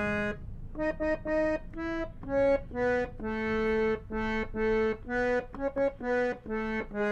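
Harmonium played alone, picking out a melody one note at a time. A held note ends just after the start, then a run of single notes follows, some short and some held.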